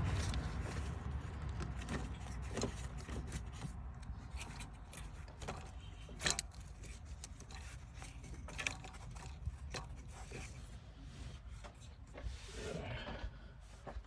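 Faint scattered clicks, rubs and scrapes of a spark plug wire being handled and threaded through an engine bay, with one sharper click about six seconds in.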